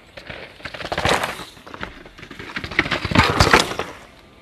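Mountain bike clattering and crunching over rock and loose dirt, in two loud bursts of dense rattling, one about a second in and one around three seconds in.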